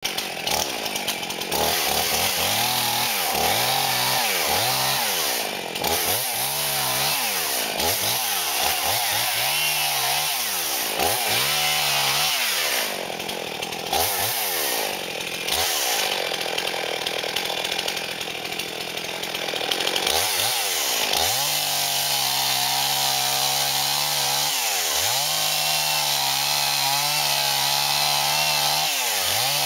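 Husqvarna chainsaw running, its engine speed rising and falling over and over, about once a second. For a few seconds about two-thirds of the way through it holds a steady speed, then it rises and falls again.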